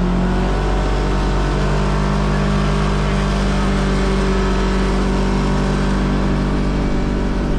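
Side-by-side UTV engine running while driving, its pitch holding steady.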